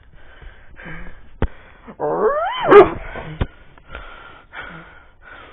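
Yellow Labrador giving one yipping whine about two seconds in, its pitch rising then falling, with two sharp clicks around it.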